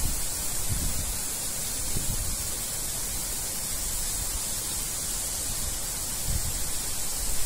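Heavy rain falling steadily, an even hiss, with a few soft low buffets of wind on the microphone.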